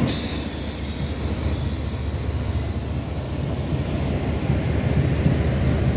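Passenger train coaches rolling past on the rails as the train pulls out of the station: a steady rumble of wheels on track with a high hiss over it.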